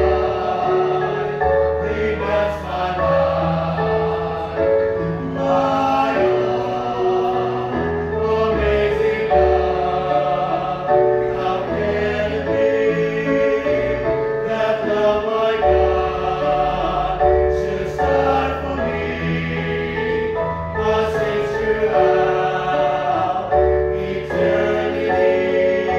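A male vocal group singing a slow hymn in harmony through microphones, with long held notes over a low bass part.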